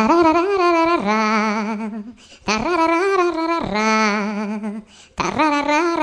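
Vocal ringtone: a voice singing a short wordless phrase three times, each starting on a higher note and dropping to a lower, wavering held note.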